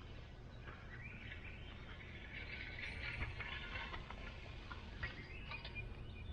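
Faint birds chirping and singing over a low, steady outdoor background noise.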